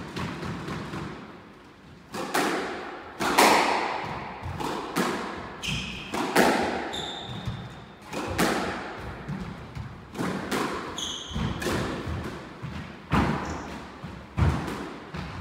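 Squash rally: a squash ball struck by rackets and smacking off the court walls about once a second, each hit echoing, starting about two seconds in. Short high squeaks of court shoes on the wooden floor come between some of the hits.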